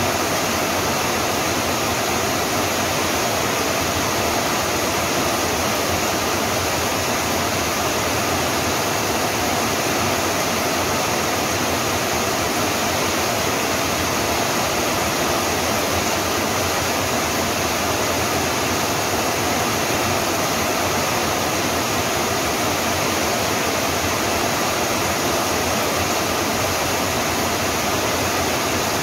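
Rain falling steadily: an even, unbroken hiss with no single drops or thunder standing out.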